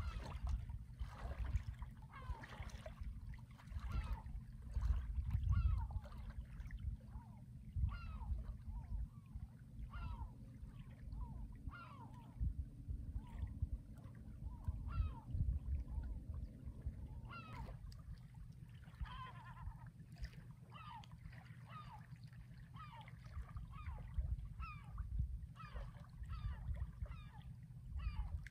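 Birds calling in many short, repeated notes over a steady low rumble.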